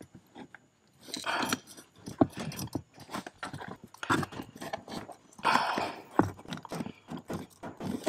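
Hands pushing a stick-on aluminium pedal cover over a car's plastic accelerator pedal: irregular scraping and light clicking as it is worked into place.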